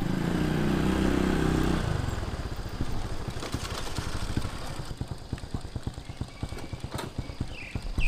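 A small engine running with a rapid pulsing beat, loudest for the first two seconds, then dropping to a slower rhythm of short, evenly spaced knocks.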